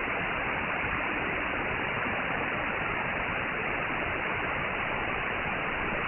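Steady shortwave static hiss from a Perseus SDR receiver tuned to 15795 kHz in synchronous AM mode, with nothing above about 3 kHz.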